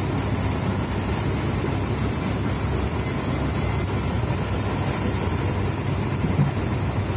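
Car engine running steadily at low speed while the car drives through floodwater, heard from inside the cabin, with a constant low hum under a steady wash of noise.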